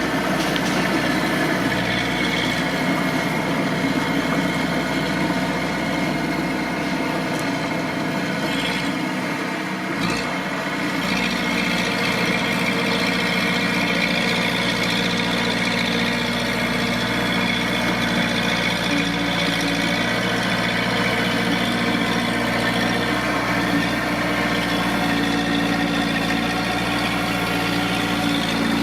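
Mitsubishi D20 bulldozer's diesel engine running steadily at an even pitch.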